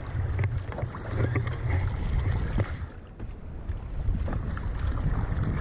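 Wind rumbling on the microphone, with choppy sea water sloshing and slapping against the side of a small boat.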